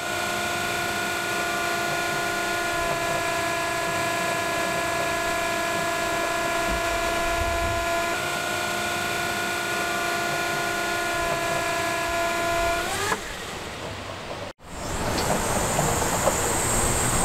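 Small 36-volt electric forklift's hydraulic pump motor whining steadily while the carton clamp is worked, then winding down with a falling pitch about 13 seconds in. After a sudden break, a noisier machine running sound with a faint high steady tone takes over.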